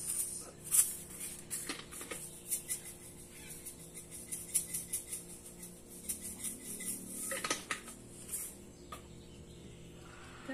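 Scattered light clicks and clatter of kitchen containers being handled: a small plastic shaker bottle shaken and tapped over a metal pot, with a louder clatter about seven and a half seconds in and the pot picked up near the end.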